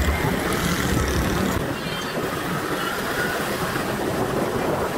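Traffic and road noise heard from a moving motorcycle: a steady rush of engine and tyre noise, with a low rumble that eases about a second and a half in.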